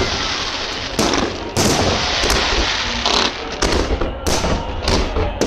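Fireworks salute: a string of sharp bangs about every half second to a second, with a stretch of dense crackling from bursting shells about midway.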